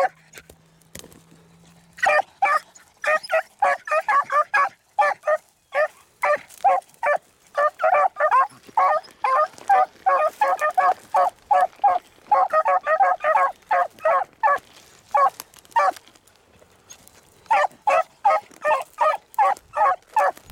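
Beagles baying on a rabbit's scent trail: short, rapid bays, several a second, from about two seconds in, with a brief pause near the end before they take it up again.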